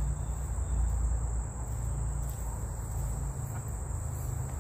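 Steady high-pitched insect chorus, an unbroken shrill trill of crickets, over a low rumble on the microphone.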